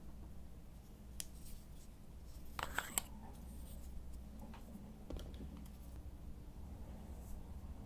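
Slime being kneaded and mixed by hand: faint, scattered sticky clicks and pops, with a quick cluster of them about three seconds in, over a low steady hum.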